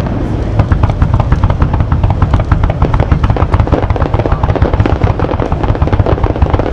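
Fireworks going off in a dense, rapid run of crackles and pops, many each second, over a steady low rumble.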